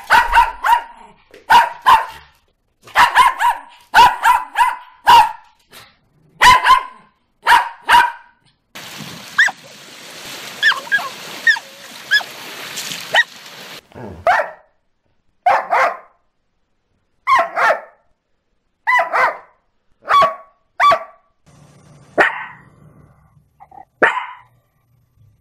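Small dogs barking: quick runs of short barks, often in pairs, for the first eight seconds, then about five seconds of surf washing over a pebble shore, then single barks about every second and a half.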